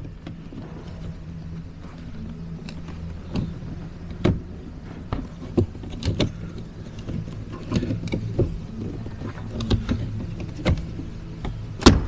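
Hard plastic window switch trim being handled and lined up on a Ford Fiesta door card: scattered light clicks and knocks of plastic on plastic, with one sharp click near the end. A steady low hum runs underneath.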